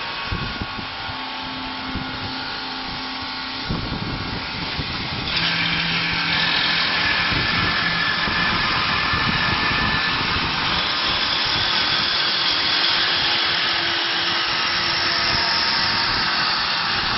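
Automatic wood copy lathe running, turning a wooden blank and shaving it into a chair-leg spindle: a steady, loud whirring hiss of cutting. It steps up louder and hissier about four to five seconds in.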